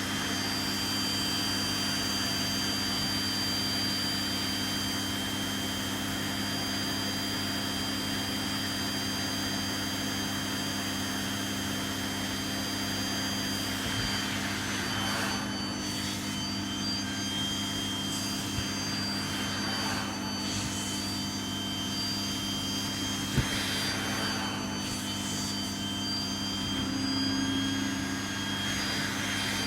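Vacuum cleaner running steadily with a high motor whine and low hum, the suction rushing louder a few times as the nozzle is worked over fabric; one short click about two-thirds of the way through.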